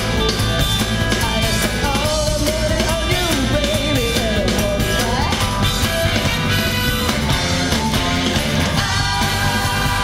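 Live rock band performance with a woman singing lead into a microphone over bass and drums; her voice slides in pitch through the phrases.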